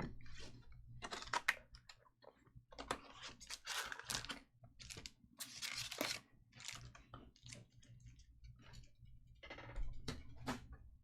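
Trading cards and their packaging being handled: irregular soft crinkles, rustles and clicks.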